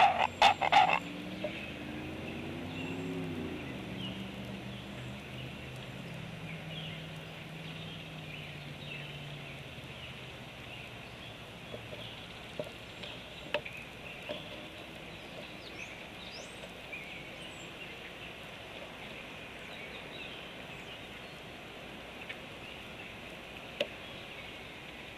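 A juvenile bird clacking its bill, a quick run of sharp clacks in the first second, then a low, pig-like grunting call that bends in pitch and drags on for about ten seconds before fading out.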